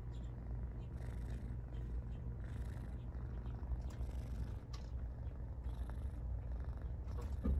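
Kitten purring steadily while it suckles, a low continuous rumble, with faint small clicks and a brief louder bump near the end.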